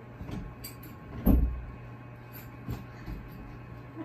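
A single dull thump about a second in, over a steady low hum, with a few fainter knocks later.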